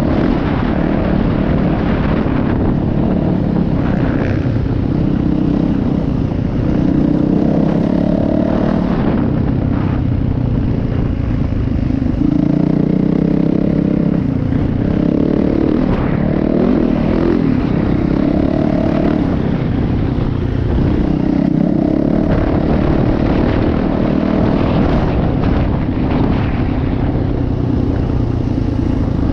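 Dirt bike engine running hard under way, its pitch rising and falling every few seconds with throttle and gear changes, with wind noise on the helmet-mounted camera.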